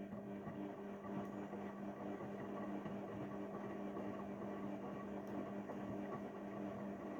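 Haier 7.5 kg washing machine on its delicate wash cycle: the motor turns the drum with a steady hum over a rushing noise, then stops at the end.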